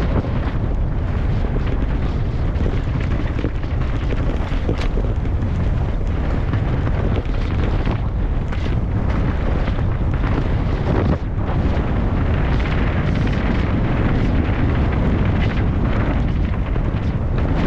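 Heavy wind buffeting on the microphone: a loud, steady low rumble, with a few short knocks.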